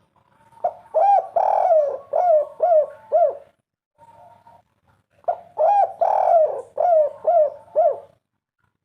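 Spotted dove singing its 'kuk 3' song twice: each phrase a short coo, one long coo, then three short falling 'kuk' notes at the end.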